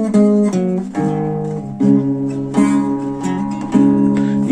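Acoustic classical guitar played solo, with chords strummed again and again and single notes picked between them, each left to ring.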